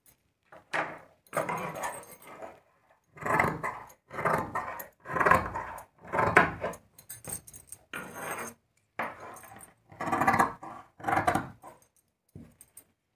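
Large tailor's shears cutting through several layers of blouse fabric: about ten rasping cuts, roughly one a second.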